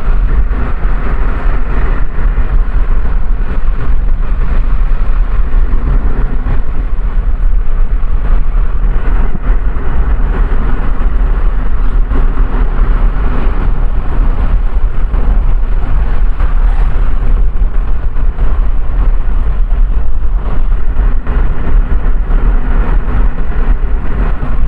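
A car driving steadily: continuous engine and road rumble, heaviest at the low end.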